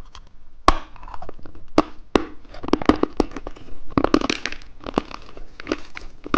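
Close-miked crunching and crinkling as candy is eaten and its plastic packaging is handled: a run of sharp clicks and crackles, densest in the middle.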